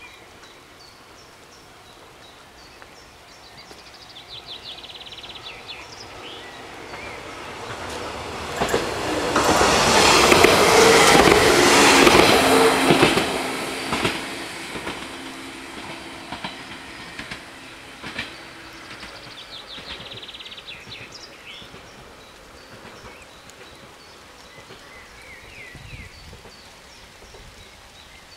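Stadler GTW electric multiple-unit train passing over a level crossing. The sound rises to a peak with wheels clattering about ten seconds in, then fades over several seconds.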